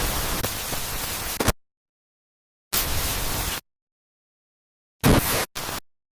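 Bursts of hissing, static-like noise that cut in and out abruptly, with dead silence between: one lasting about a second and a half, another of about a second in the middle, then two short blips near the end.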